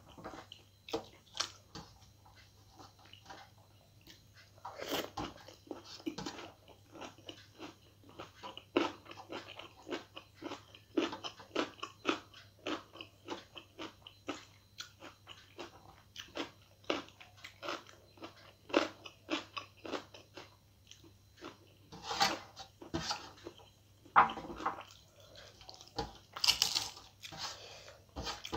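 Close-up chewing and crunching of a person eating, with irregular wet mouth smacks, and fingers working food on a steel plate.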